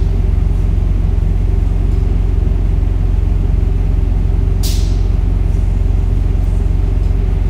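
Steady low mechanical hum with evenly layered pitch and no change in level, and a short hiss a little past halfway through.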